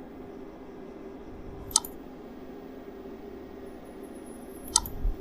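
Two sharp computer-mouse clicks, about three seconds apart, over a faint steady hum of room tone.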